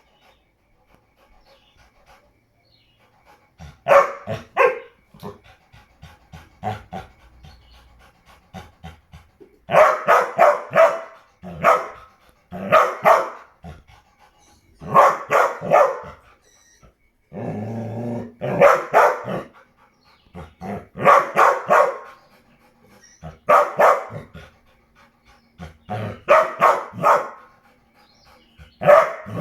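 A dog barking in bursts of several quick barks, starting about four seconds in and coming back every two to three seconds, with quiet gaps in between.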